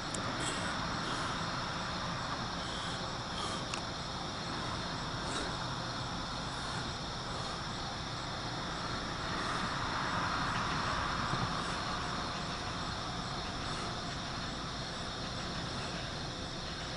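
Diesel locomotives of a CSX empty coal train approaching slowly: a steady, distant engine sound that swells a little about ten seconds in. Insects chirr steadily in the background.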